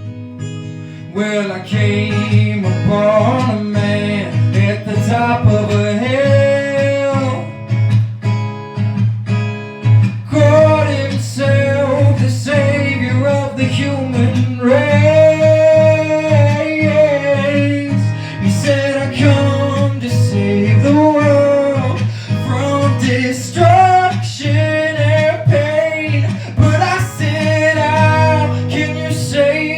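Singing over strummed acoustic guitar.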